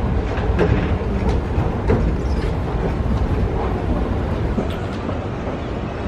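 Escalator running: a steady low rumble with occasional sharp clacks.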